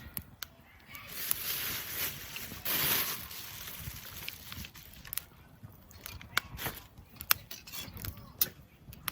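Wood campfire crackling, with irregular sharp pops and snaps. A louder hissing rush comes in about a second in and fades after a couple of seconds.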